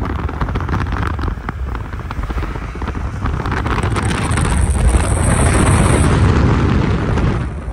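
Wind buffeting the microphone over the rumble of a moving vehicle. It grows louder in the second half and falls away near the end.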